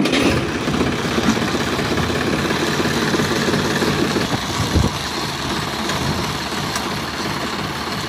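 Engine idling steadily with a low, even pulsing, and a single thump about five seconds in.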